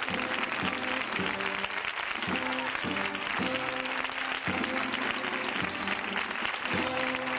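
A band plays a processional march while a crowd applauds steadily.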